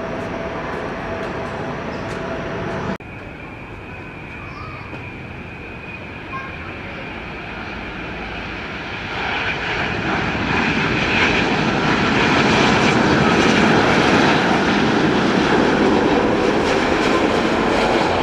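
A C-130 Hercules's four turboprop engines running steadily with a held hum for the first three seconds, then an abrupt change to a Boeing 787 airliner's jet engines on landing approach: a faint whine that swells from about nine seconds in into a loud, steady rush that holds to the end.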